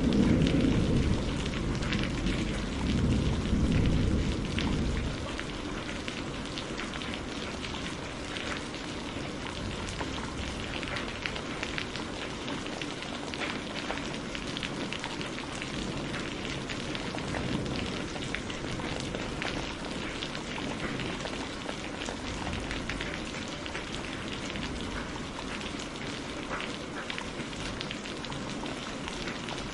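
Rain falling steadily, with a low thunder rumble dying away over the first five seconds.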